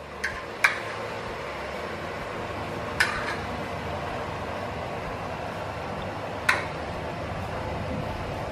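A metal spoon clinking against a plate four times as filling is scooped into samosa wrappers: twice in the first second, once at about three seconds and once at about six and a half seconds, over a steady background hiss.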